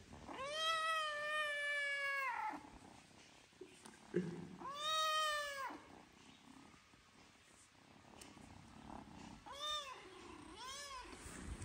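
Kitten meowing four times: two long, drawn-out meows, then two short ones near the end.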